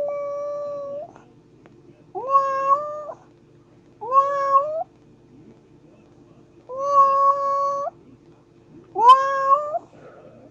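Kitten meowing repeatedly: five drawn-out calls about two seconds apart, each rising at the start and then holding one steady pitch, over a faint steady hum.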